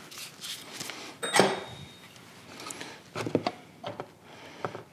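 Handling noise as an oil filter housing cap and its filter are taken out: a sharp metallic clink with a brief ringing tone about a second and a half in, then a cluster of light knocks and clicks from the parts and a plastic tub being handled.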